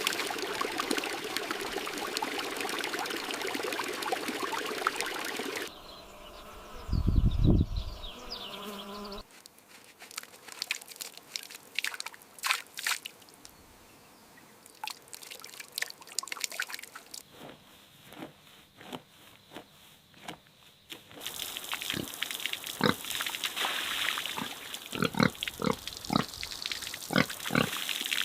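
Pigs grunting: a run of short grunts, scattered in places and coming thick and fast in others, over changing background noise.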